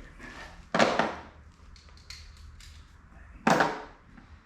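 Two loud, short clattering knocks of something being handled or set down, about two and a half seconds apart.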